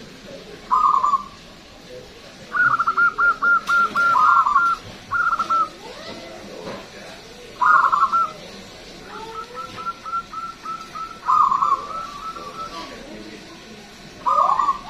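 Zebra dove (perkutut) singing: repeated loud bursts of quick, rhythmic cooing notes, about seven phrases, with a fainter run of notes in the middle.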